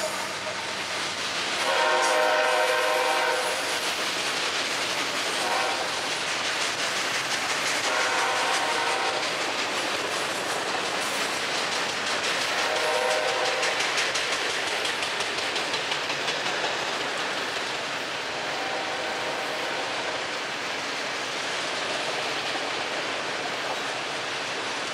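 Autorack freight cars of a Florida East Coast Railway train rolling past, with a steady rumble and clatter of wheels over the rails. A multi-note train horn sounds several times over it, loudest about two seconds in.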